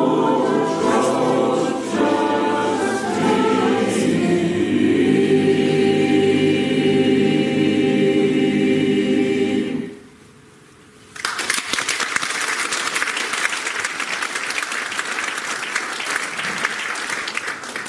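Mixed amateur choir singing, ending on a long held chord that cuts off about ten seconds in. After a second's pause, the audience applauds.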